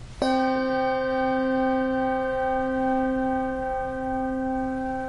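A bell struck once, just after the start, then left to ring on steadily with one clear pitch and a slow waver. It is tolled in memory after each name in a reading of the dead.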